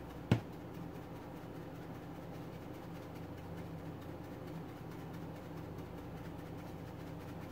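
A single sharp knock about a third of a second in, over a steady low hum in a kitchen.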